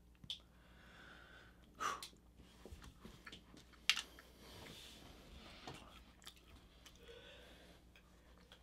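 Faint chewing of crunchy Coconut Dreams coconut cookies by two people, with a few sharp crunchy clicks, the sharpest about two and four seconds in.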